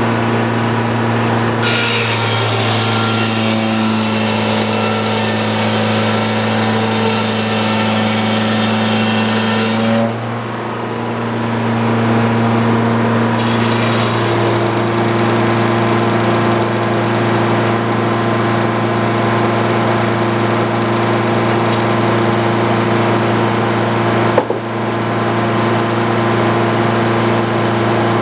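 Portable sawmill's engine running steadily at working speed. For the first third, the blade cuts through a log with a rasping hiss over the engine. After that the engine carries on with a steadier hum and one short knock.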